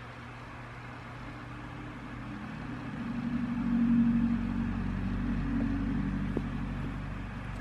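A vehicle engine running, growing louder to a peak about four seconds in and then easing off, over a steady hiss.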